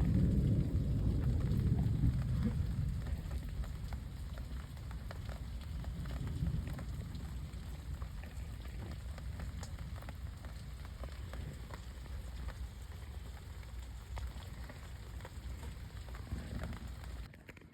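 Rain falling steadily, many drops ticking sharply on a surface. A heavy low rumble in the first few seconds dies away, and the rain eases a little after that.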